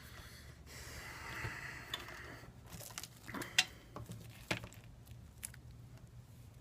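A soft rustle, then a few sharp small clicks and taps as small phone parts and tools are handled during smartphone reassembly, one click near the middle louder than the rest, over a low steady hum.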